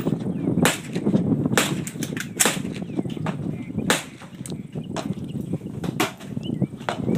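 Gunshots on a shooting range, several sharp reports at irregular intervals over a low background rumble.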